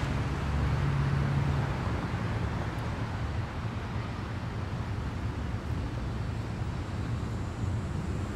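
Steady low rumble of road traffic or a vehicle, with an even hiss above it.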